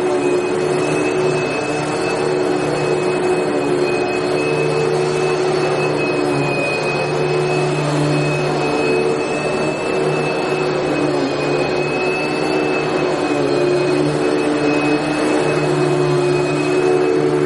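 Vacuum cleaner motor running steadily: a continuous rushing noise with a steady high whine over a low hum.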